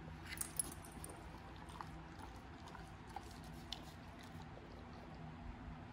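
Black Labrador licking and nosing at a rug, faint mouth clicks, a few soft ticks about half a second in and later, over a low steady hum.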